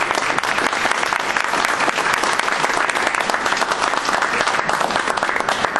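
An audience clapping in a sustained round of applause, thinning out near the end.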